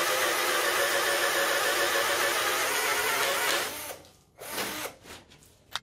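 Wesco 12V cordless drill running steadily at a constant pitch under load, boring a 20 mm spade bit into wood, then cutting out about three and a half seconds in. A few short faint rustles and knocks follow.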